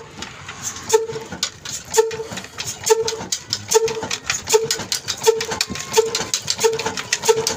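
Old black horizontal single-cylinder stationary diesel engine with a big flywheel, just started and picking up speed. Its slow firing beats come as short pitched pops, about one a second at first and a little faster by the end, over a steady mechanical clatter.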